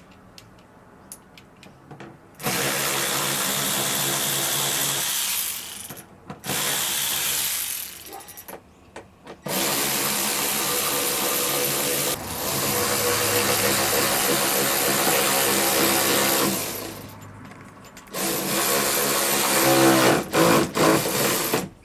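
Handheld rotary tool running in four bursts of a few seconds each, a steady motor whine under a grinding hiss, stopping briefly between bursts. It is grinding the metal around a riv nut hole flat so the riv nut sits flush.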